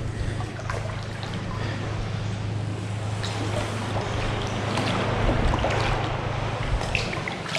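Calm seawater lapping and trickling around an inflatable kayak as paddles dip in and drip, with scattered small splashes over a steady low rumble.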